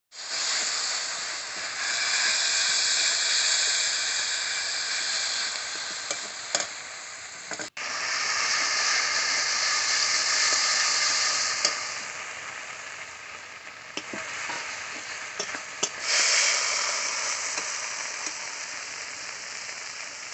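Food frying in hot oil in a pan, a steady sizzle that swells and dips a few times, with occasional short clicks of a spoon stirring it.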